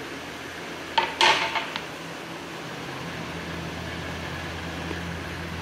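A brief clatter of kitchen utensils and dishes about a second in, with a couple of sharp clicks, over a steady low hum.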